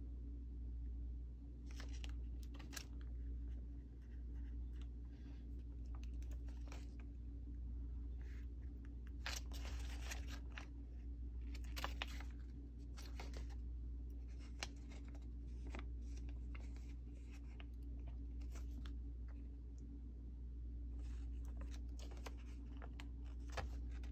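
Stickers being peeled off their clear plastic backing sheets with metal tweezers: scattered short crackles and rustles of the sheets, thickest about ten and twelve seconds in, over a steady low hum.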